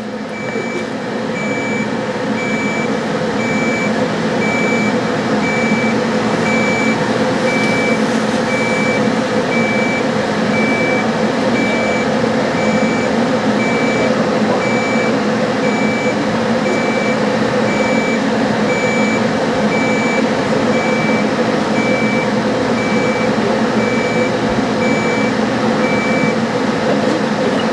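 Class IV therapy laser unit sounding a steady series of short, evenly spaced beeps while it fires, over a steady hum. The beeping stops near the end.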